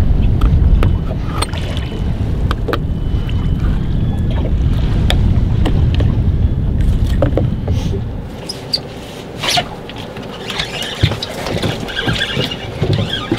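Steady low rumble of wind and water on a small boat, with a few sharp clicks of a knife on a plastic bait board as squid strips are cut. About eight seconds in, the rumble drops and scattered lighter clicks and knocks remain.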